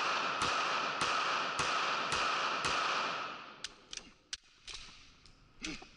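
Pistol shots fired at about two a second, five in a row, with a steady ringing under them in the indoor range; about three seconds in the shooting stops and a few quieter clicks follow, the handling of the pistol as a stoppage is cleared in a malfunction drill.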